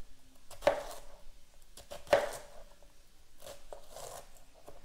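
Chef's knife slicing through green cabbage onto a plastic cutting board. Two loud strikes about a second and a half apart, then several lighter cuts near the end.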